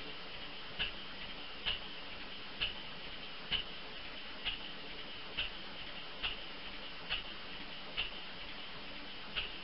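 Light, sharp mechanical ticks over a quiet background, evenly paced a little under once a second and spacing out slightly near the end.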